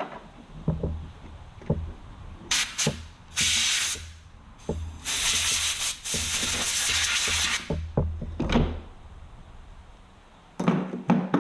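Three bursts of hissing spray on the chainsaw's parts, the last lasting nearly three seconds. Between them come sharp clicks and knocks of tools and metal parts being handled, and a short scraping burst near the end.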